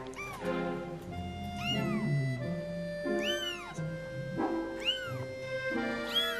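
Two-week-old kittens meowing about five times, each call high, thin, rising then falling, over background music of sustained instrument notes.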